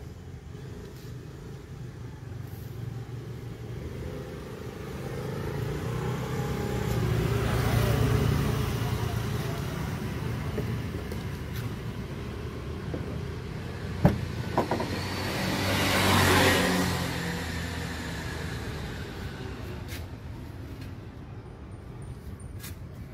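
Two road vehicles pass by one after the other, each rising and then fading, heard muffled from inside a car's cabin. A sharp click comes between the two passes.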